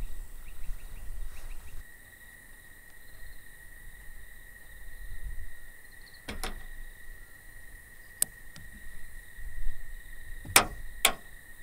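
Cord being pulled quickly through the hands while tying a prusik knot, giving four short zips about 6, 8, 10.5 and 11 seconds in. A steady high insect drone runs underneath from about two seconds in.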